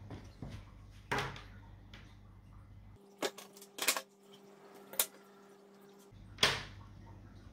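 Black plastic drip-irrigation tubing being handled and fitted on a tabletop: a handful of sharp knocks and clicks as the tube and fitting touch the table and each other, the loudest near the end. A low steady hum runs behind and drops out for about three seconds in the middle.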